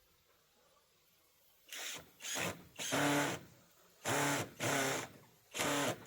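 A power drill running in six short bursts, starting about two seconds in, each a brief pulse of the trigger as it drives fasteners to hold hardware cloth to the run's frame.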